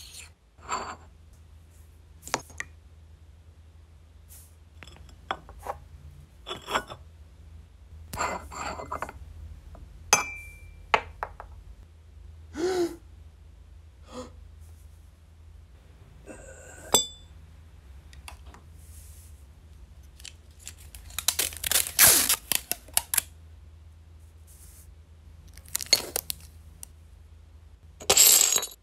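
Ceramic teacups, saucers and teaspoons clinking, knocking and scraping on a wooden table in a run of short separate sounds. A little past the middle comes the loudest, densest clatter, a china saucer smashing into pieces, and near the end there is another short burst of clatter.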